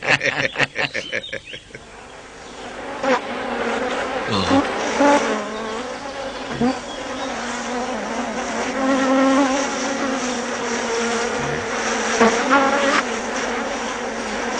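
Steady buzzing drone like a swarm of flying insects, with a fast even pulsing in the first second or so and a few brief louder sounds through it.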